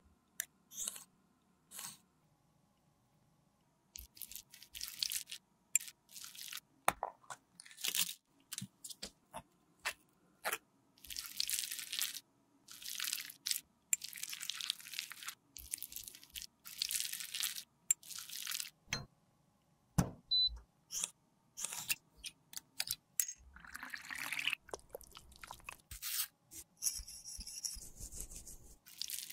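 Close-up handling sounds of lipstick work: repeated short crunching and scraping strokes and sharp clicks, including a metal rod scraping and tapping red lipstick pieces in a small glass beaker.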